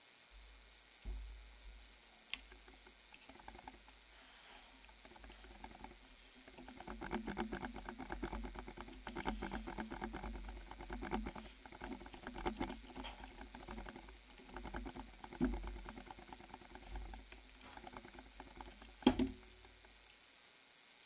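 Rustling with dense, rapid clicking through the middle, and a few single knocks, the loudest near the end.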